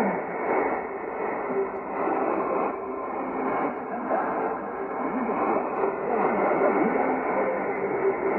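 Shortwave AM reception of Voice of Indonesia on 3325 kHz through a Sony ICF-2001D receiver in narrow sync mode: a weak broadcast half-buried in steady hiss and static, with short pitched fragments of the programme showing through. The sound is cut off above about 3 kHz by the narrow filter, which gives it a muffled tone.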